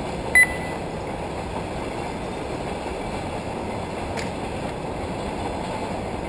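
Steady rushing background noise with a short, high electronic beep about half a second in, and a faint click a little past the middle.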